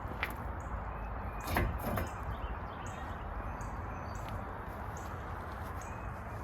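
A freed brake rotor being pulled off a truck's front wheel hub and handled: a couple of metal clunks and a scrape about a second and a half in, with a lighter click near the start.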